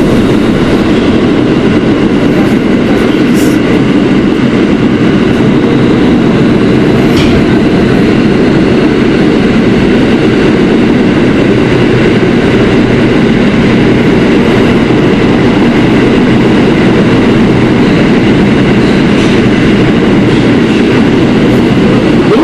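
Kawasaki R160B subway car running at speed between stations, heard from inside the car: a loud, steady rumble of wheels and running gear on the rails, with faint steady higher tones over it and a few light clicks.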